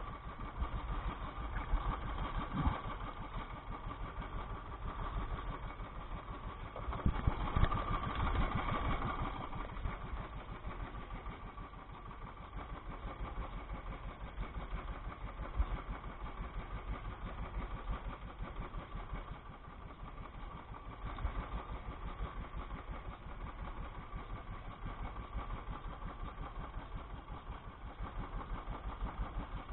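Small engine of a motorized outrigger canoe running steadily with a fast, even putter, briefly louder about seven to nine seconds in.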